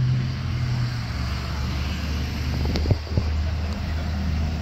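A large road vehicle's engine running with a low steady drone that drops in pitch about a second in. Two sharp clicks come about three seconds in.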